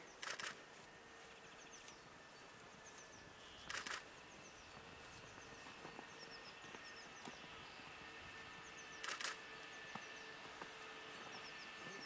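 Camera shutters firing in three short bursts a few seconds apart, over a faint steady hum.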